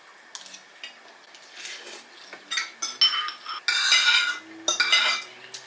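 Spoon clinking and scraping against a bowl of noodle soup during eating, a quiet start and then a run of sharp clinks and clatter, loudest in the second half.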